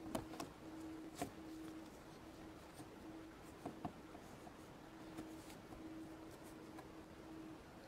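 Faint handling noise of Play-Doh being pressed into a plastic mold by hand: soft scattered clicks and taps, a few sharper ones near the start and about a second in.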